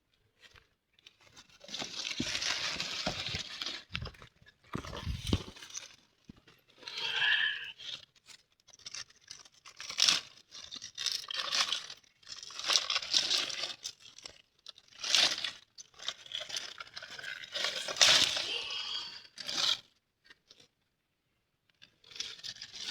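Pineapple crunching and tearing in irregular bursts of a second or two, with short pauses between them.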